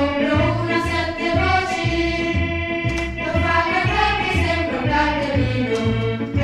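Background music with singing voices over a repeating bass line.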